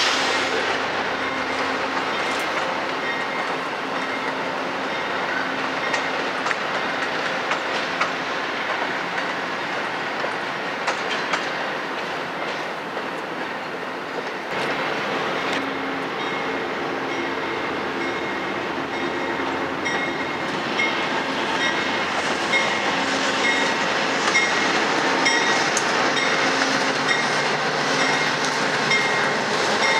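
Amtrak passenger train rolling past with a steady rumble, its wheels clicking over rail joints. The clicking becomes more regular and distinct in the second half.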